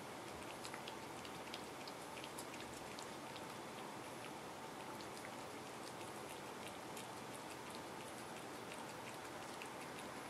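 A cat licking a paste treat from a squeeze tube: quick, irregular little wet clicks of the tongue, faint over a steady hiss.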